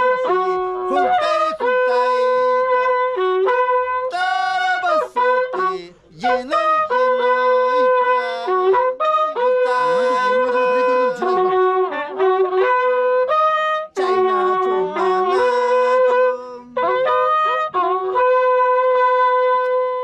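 Andean corneta, a valveless horn trumpet, playing a slow melody of long held notes. The notes sit mostly on one high tone and drop in steps to a few lower tones, with short gliding breaks between phrases.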